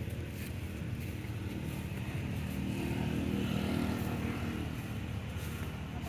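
A motor vehicle's engine running steadily, growing louder to a peak about three to four seconds in and then easing off, as when it passes by.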